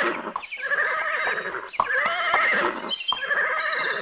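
Horse whinnying several times in a row, each whinny about a second long with a quavering, trembling pitch.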